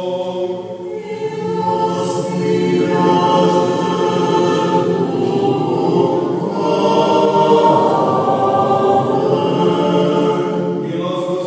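Choir and congregation singing an unaccompanied Byzantine-rite liturgical chant response, many voices together, fullest in the middle. Near the end a single voice takes up the chant again.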